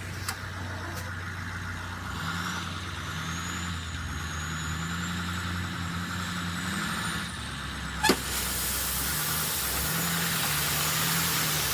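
Heavy construction machine's engine running steadily, with a sharp click near the start and a loud sharp knock about eight seconds in, after which a louder steady hiss joins the engine sound.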